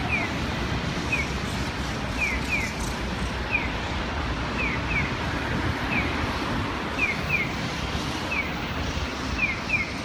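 Steady street traffic noise. Over it, short high chirps, each falling in pitch, repeat regularly: one chirp, then a pair, about once a second.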